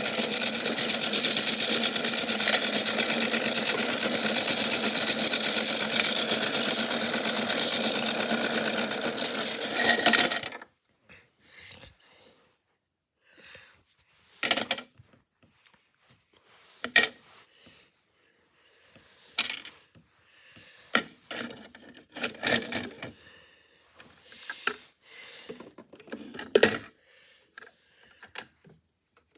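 Washing machine running with a big rock in the drum, a steady loud mechanical noise that cuts off abruptly about ten seconds in. After that come scattered short knocks and clicks.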